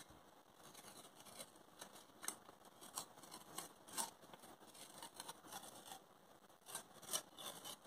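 Sublimation transfer paper being peeled off a heat-pressed stainless steel bottle after printing: a string of faint, short, irregular paper crackles.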